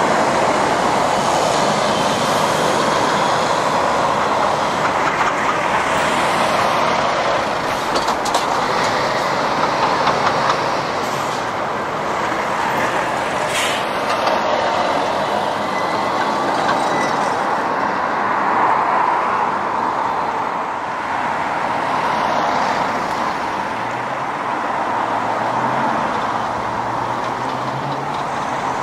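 Steady roar of heavy road traffic, lorries' tyres and engines passing continuously, with a deeper engine drone coming in near the end.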